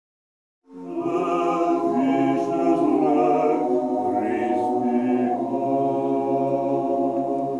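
Unaccompanied chant-like singing with long held notes, starting just under a second in.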